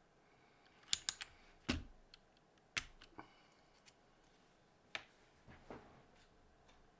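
Me too ZERO mechanical keyboard with black switches being typed on: about nine separate keystrokes at an uneven pace, bunched in the first half with longer gaps later.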